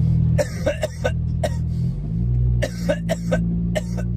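A man coughing in short, sharp fits, several coughs in quick succession, after inhaling smoke. Under it is the steady low hum of the car's engine inside the cabin, which shifts in pitch about halfway through.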